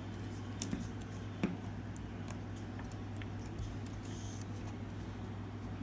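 Small sharp clicks and taps from reconnecting an iPhone 5C's screen flex-cable connectors onto the logic board, the two clearest about half a second and a second and a half in, over a steady low hum.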